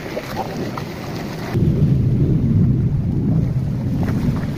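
Wind buffeting the camera microphone: a loud low rumble that sets in about a second and a half in.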